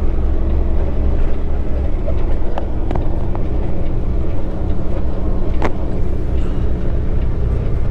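Heavy truck's diesel engine running steadily, heard from inside the cab as it rolls slowly, with a few light clicks, the sharpest about five and a half seconds in.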